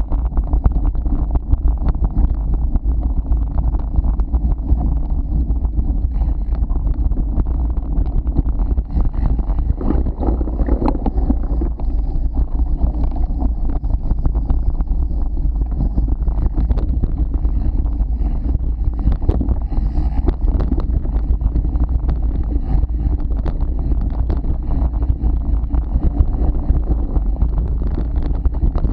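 Wind buffeting a bike-mounted camera's microphone over the rumble and constant rattling knocks of a mountain bike riding over a rocky dirt trail.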